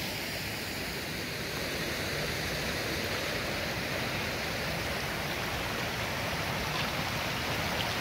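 Shallow, clear stream running steadily over pebbles and rocks.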